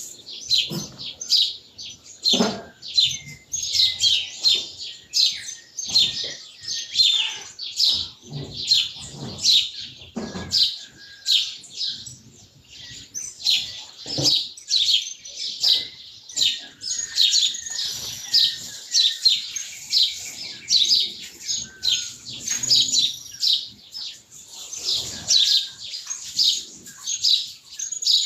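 A chorus of small birds chirping and twittering without pause, many short high notes and quick trills overlapping. A couple of brief knocks stand out, one about two seconds in and one near the middle.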